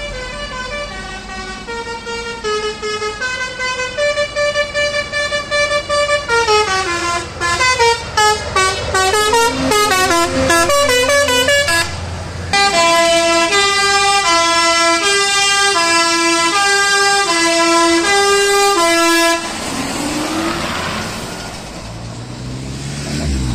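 Truck's musical air horn (multi-trumpet melody horn) playing a tune, the notes stepping up and down a couple of times a second with a run of rapid notes in the middle. It stops about three-quarters of the way through, and then the truck's engine is heard revving up.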